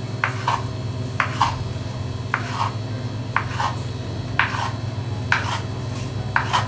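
Kitchen knife chopping boiled egg whites on a wooden cutting board: sharp knocks of the blade on the board in pairs, about one pair a second.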